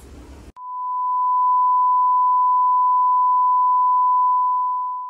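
A steady electronic beep tone at one unchanging pitch, starting about half a second in, swelling up over about a second, holding level, then fading out near the end.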